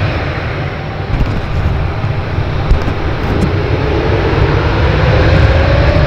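Embraer 195-E2's Pratt & Whitney PW1900G geared turbofans running with a steady rumble, a faint whine rising steadily in pitch through the second half as the engines spool up.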